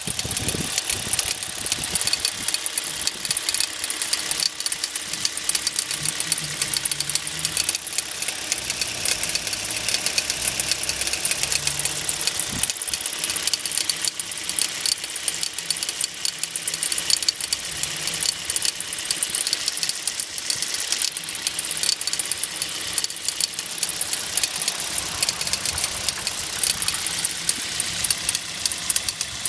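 Hyundai Solaris petrol engine running steadily with a rapid, even knocking from the engine, the knock the owner is showing.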